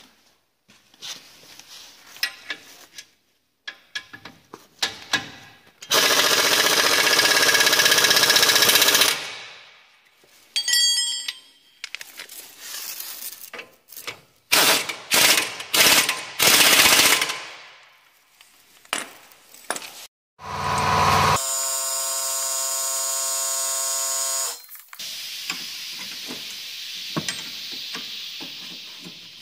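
Impact wrench hammering in bursts of a few seconds, running down the strut's nuts and bolts on refitting, with metal clicks and knocks of the work between the bursts.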